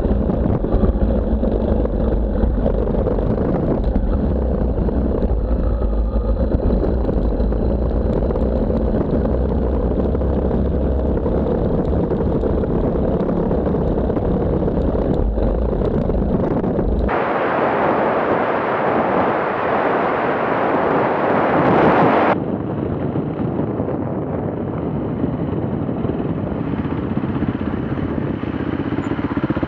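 Off-road vehicle engines running while riding, across several cut-together clips: a heavy low rumble for the first part, switching abruptly about 17 seconds in to a hissier sound, and changing again about five seconds later.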